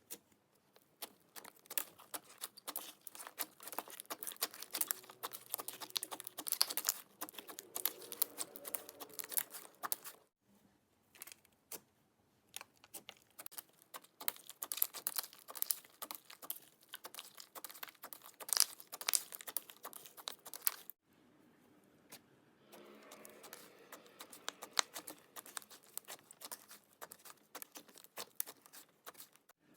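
Clay slime being kneaded and stretched by hand, giving dense, irregular sticky clicks and crackles. The sound breaks off briefly twice, about a third and two-thirds of the way through, then picks up again.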